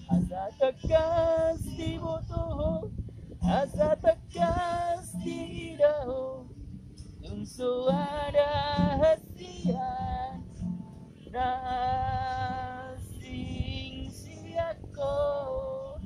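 A woman singing a slow song in phrases with held, wavering notes, to her own acoustic guitar, with low wind rumble underneath.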